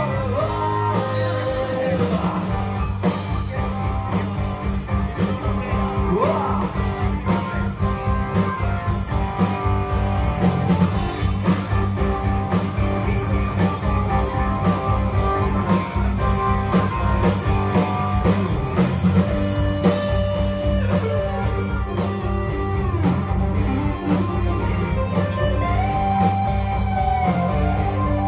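Live rock band playing: a male singer over electric guitars and a drum kit, a steady, loud full-band sound.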